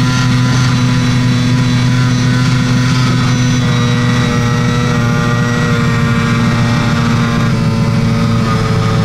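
Amphibious aircraft's piston engine running steadily at taxi power while the plane moves across the water, heard from inside the cockpit. Its drone eases slightly lower about three and a half seconds in.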